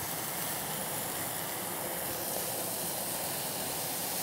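Thin-sliced marinated ribeye sizzling steadily on a hot stainless-steel teppanyaki griddle greased with duck fat, as more handfuls are dropped onto it from the marinade.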